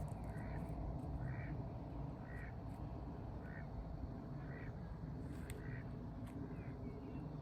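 A bird calls over and over, a short call about once a second, over a steady low rumble.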